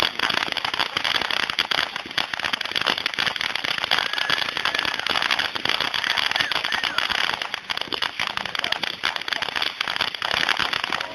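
Consumer fireworks crackling: a dense, rapid, unbroken crackle that keeps up steadily throughout.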